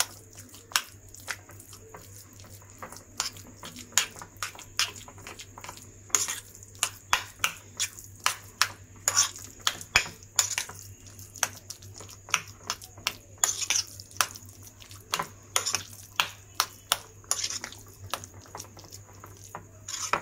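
Metal blade of a knife-like utensil scraping and clinking against a ceramic plate while mixing crumbly cottage cheese (chhena), giving irregular sharp clicks and short scrapes, several a second at times.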